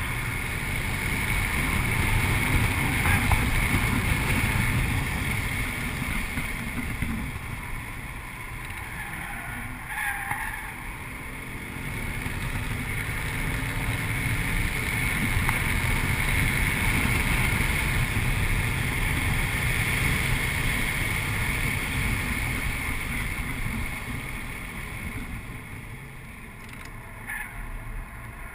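A 2008 Audi RS4's 4.2-litre V8 driving hard on a race track, heard from inside the cabin as a low rumble mixed with wind noise. The sound swells and eases twice as the car accelerates and slows, with a brief click about ten seconds in.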